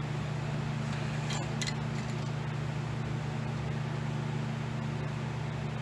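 Steady low background hum of a machine shop, with a few light clicks about a second and a half in.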